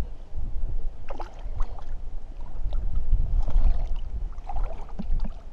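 Wind buffeting the microphone, with light splashing of water as a landing net holding a trout is dipped into the shallows.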